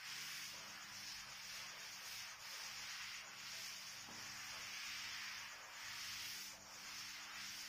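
Cloth wiping chalk off a blackboard: a soft rubbing hiss that swells and fades with each stroke.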